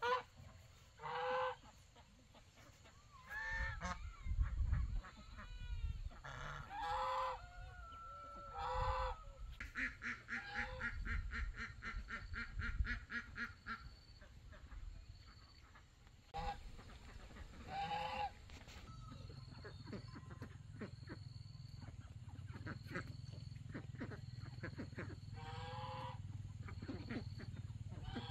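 Geese honking: short, nasal calls that come singly, several seconds apart. There is a quick run of higher, evenly repeated calls around the middle, and a low steady hum underneath in the second half.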